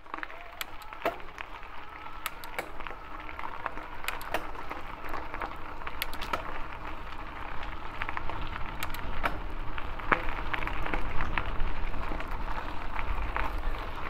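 Fazua e-bike drive running quietly under the crackle of tyres rolling on gravel, with a low rumble that grows louder towards the end. The motor sound is pleasantly quiet and doesn't screech.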